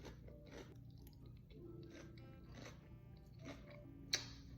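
Someone chewing crispy chicken Caesar salad: a string of crunchy bites about half a second apart with a pause or two, the sharpest crunch near the end. Soft background music underneath.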